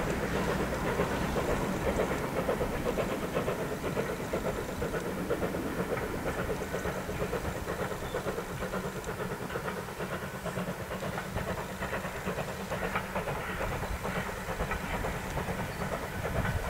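Ivatt Class 2 steam locomotive 46512 running with a passenger train: steam hiss and exhaust over the clatter of wheels on the rails, fairly steady throughout.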